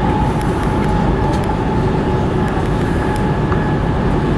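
Renfe 464 Civia electric multiple unit running at speed, heard inside the passenger car: a steady rumble of wheels on rail with a constant whine and a few faint clicks.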